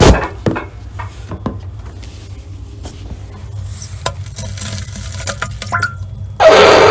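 Scattered clicks, clinks and knocks, like dishes and cutlery being handled, then a sudden loud, rough, wavering noise near the end.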